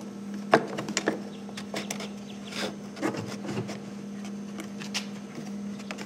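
Small clicks, taps and rubbing from the plastic latch handle and its pin being fitted over the latch cable in a Mercury Verado outboard cowling, with a few sharper clicks about half a second and a second in.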